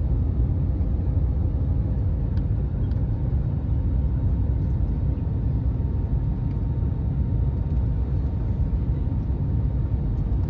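Steady low rumble of airliner cabin noise in flight, engines and airflow, with a faint steady hum above it.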